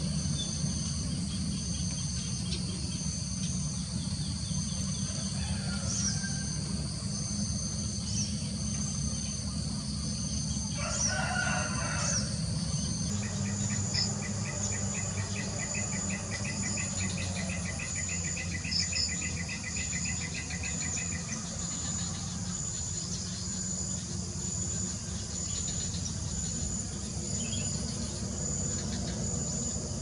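Rural ambience of insects chirping, with a steady, evenly pulsing high-pitched chirp throughout. A rooster crows once about 11 seconds in. After an abrupt change in the background at about 13 seconds, a rapid, evenly pulsed trill runs for about seven seconds.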